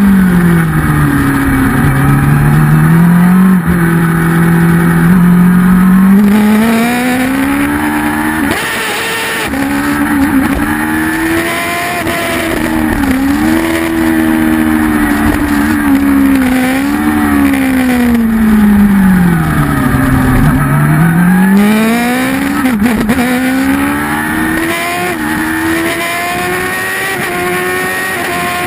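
Kawasaki ZX-10 superbike's inline-four engine heard on board at race pace: its note falls steadily, holds low, then climbs again, with sudden short drops as it shifts gear. This falling-and-rising pattern repeats twice, the longest fall ending about two-thirds of the way in before it climbs back up.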